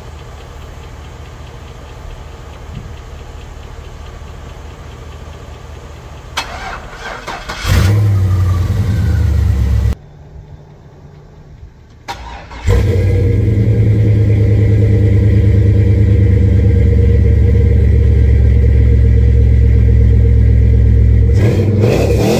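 The 6.0 LS V8 in a 1973 Buick Electra, on jumper cables after a flat battery, cranks about six seconds in and fires, running loud for a couple of seconds. After a short break it runs loud and steady. Before the start there is a low, steady engine hum.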